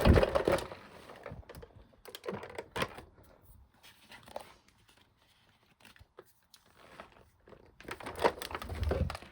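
Scattered light clicks, taps and rustling from hands handling and tilting a plastic vacuum canister, with a louder cluster of knocks near the end; the vacuum motor is off.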